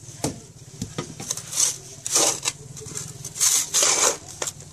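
A spade scraping up loose, damp soil and tipping it into a hole, heard as several short scraping, pattering bursts of falling dirt, with a sharp click near the start.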